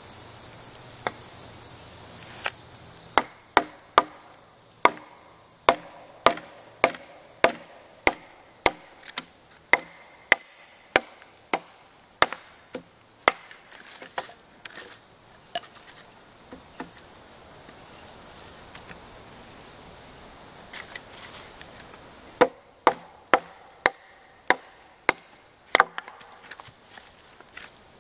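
Ontario kukri chopping down into a short upright stick of wood, splitting it: a run of sharp chops at a little under two a second, a lull in the middle, then another quick run of chops near the end.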